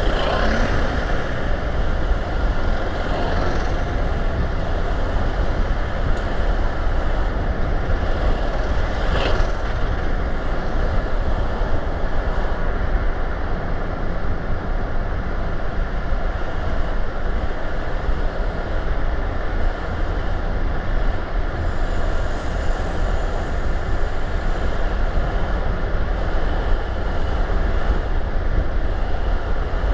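A car driving along a road: steady tyre and wind noise with a deep rumble.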